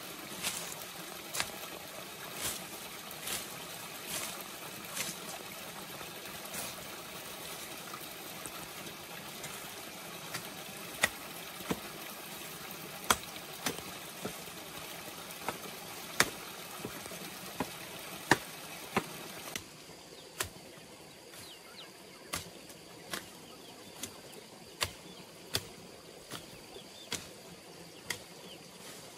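Machete chopping through weeds and grass: sharp, irregular chops, roughly one a second, with a brief pause between strokes.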